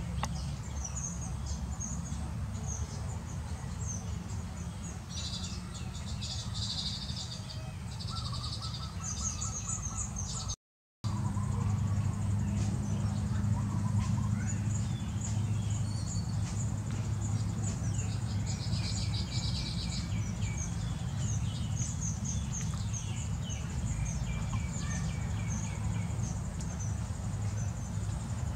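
Small birds chirping, with quick repeated calls and a few short trills, over a steady low rumble. The sound cuts out completely for a moment about a third of the way through.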